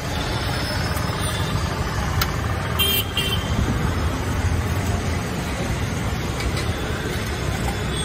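Roadside street ambience: a steady low rumble with a short vehicle horn toot about three seconds in, and a few light clinks of steel utensils.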